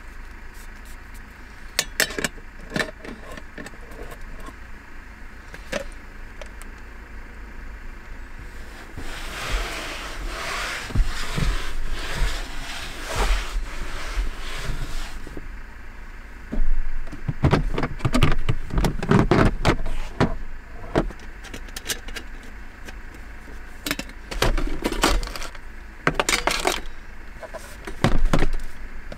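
Handling noises: scattered clicks and knocks, with longer stretches of rustling about a third of the way in and again in the second half.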